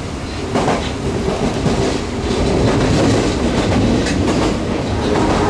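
Interior running noise of an Osaka Metro 30000 series subway car moving through the tunnel: a steady rumble of wheels on rail, with a few clicks from the track.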